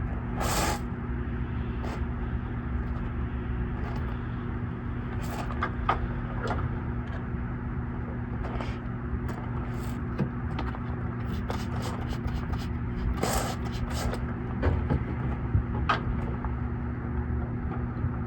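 A few short hissing sprays from a quick detailer spray bottle, the largest about half a second in and about 13 seconds in, with a rag rubbing and scraping inside the tail light openings. A steady low engine-like hum runs underneath.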